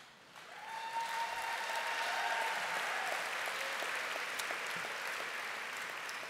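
Audience applauding, building up over about a second, holding steady, then starting to fade near the end. A long held high note rides over the clapping through the first half.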